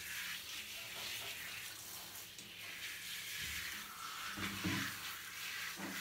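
Water spraying from a handheld shower head onto a cat's wet fur, a steady hiss.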